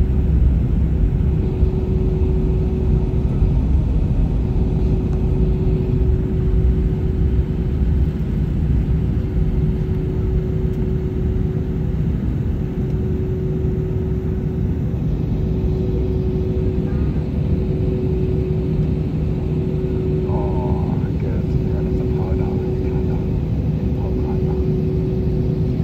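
Inside an airliner cabin during taxi: the jet engines run at low taxi power as a steady low rumble with a steady hum, not rising.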